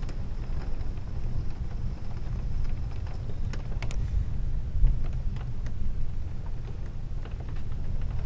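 Storm wind rumbling steadily on the microphone, with scattered sharp ticks that fit raindrops.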